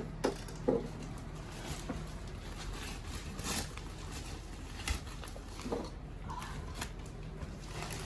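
Scattered light rustles, scrapes and a few soft knocks of hands fitting insulation batts into a wall, over a faint steady low hum.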